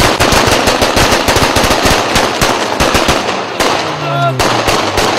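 Rapid celebratory gunfire from several rifles fired into the air, with shots in quick overlapping bursts of several a second. Men shout a little after the middle.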